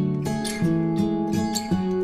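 Background music: a plucked-string melody, a few notes a second.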